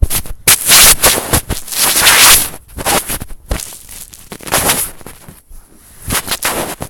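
Loud, irregular bursts of scraping, crackling noise, several in a row, from the microphone being rubbed or handled.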